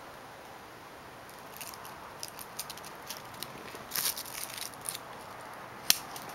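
A kitten's paws scampering and scratching on carpet close by: light scattered ticks and patters that grow busier as it arrives, with one sharp click near the end.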